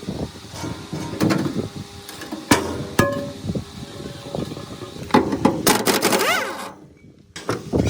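Metal knocks and clanks of tools on machine parts, several ringing briefly, with a short squeak about six seconds in.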